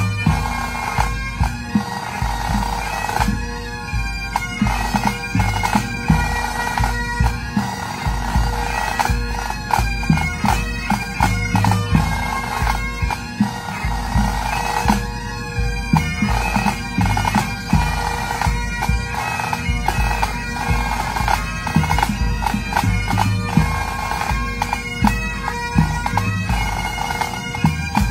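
Pipe band playing: Great Highland bagpipes sound a melody over their steady drones, with snare, tenor and bass drums beating under them.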